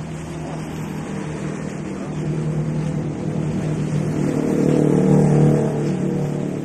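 A motor vehicle's engine running steadily, growing louder about five seconds in and then easing off.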